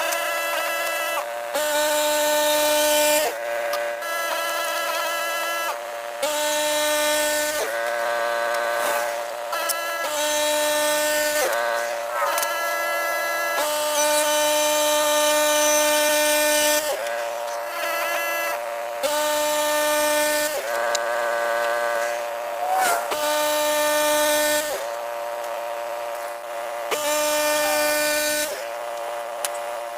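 Portable bandsaw mill cutting white oak: a steady high whine from the blade over a bright sawing hiss, breaking off and starting again at a slightly different pitch every second or two.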